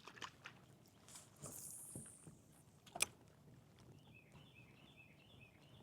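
Quiet, with faint small handling clicks; a brief high whir that falls in pitch about a second and a half in and a single sharp click about three seconds in, fitting a cast with a fishing reel. A faint repeated high chirping follows near the end.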